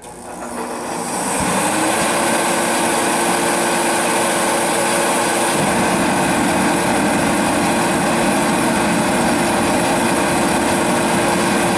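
Portable forced-air heater starting up: its motor and fan spin up over the first second or two to a loud, steady whir with a steady hum, and a deeper rushing sound joins about five and a half seconds in.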